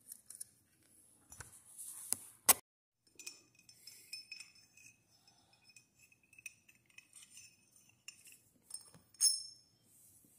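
Metal parts of a ceiling fan downrod and its hanger ball clinking and scraping as they are handled. There are a few sharp clicks, the loudest about two and a half seconds in and another near the end, with light rattling and scraping between.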